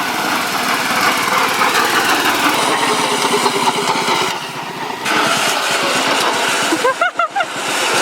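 Racing lawn mower engine running loud and hard at speed, with a dip in level about halfway through. Near the end a quick run of short, high, rising squeaks sounds over it.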